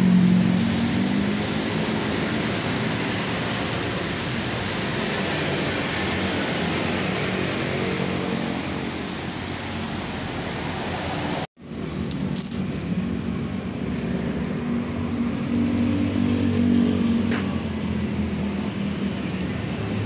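Street traffic: engines of passing motor vehicles running steadily. The sound cuts out abruptly about halfway and comes back a little quieter.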